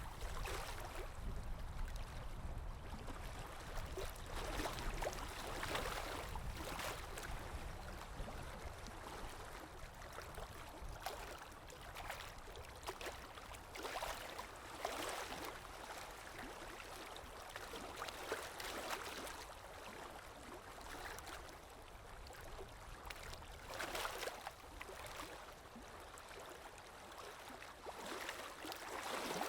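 Sea waves washing in, a rushing surge of water swelling and fading every few seconds.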